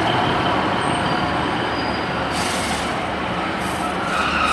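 Two coupled Class 153 single-car diesel multiple units running into the platform at low speed: a steady rumble of underfloor diesel engines and wheels on rail, with faint high squealing tones from the wheels and brakes, one growing stronger near the end.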